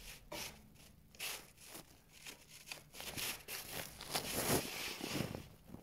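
Close, irregular rustling and crinkling handling noises, louder for a moment about four seconds in.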